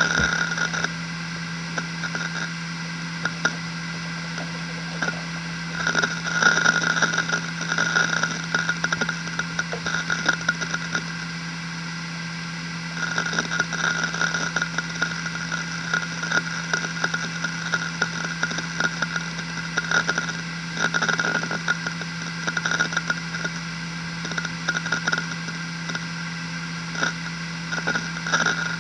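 Maxtor Atlas 10K V 300GB hard drive running at 10,000 rpm, with a steady hum. Several times its heads seek in clusters of rapid clicks lasting a few seconds each, as the drive reads and writes.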